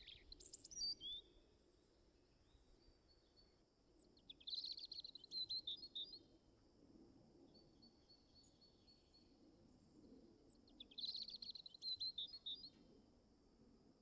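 Small songbird singing. There is a brief burst of calls at the very start, then two matching short phrases about six seconds apart, each a rapid stutter of notes ending in a few high chirps, with a faint thin trill between them.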